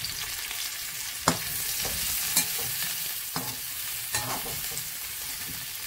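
Sliced mushrooms sizzling in hot olive oil in a pan, stirred with a spatula that scrapes and knocks against the pan a few times.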